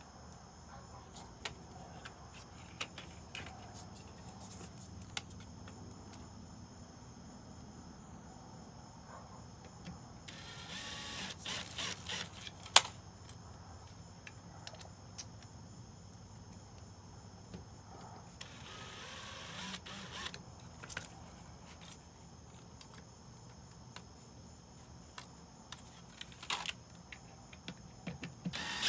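Scattered clicks and small knocks of tools and hardware being handled, with two short runs of a cordless drill/driver of about two seconds each, a third of the way in and again past the middle, and a sharp click just after the first run. The drill starts again right at the end.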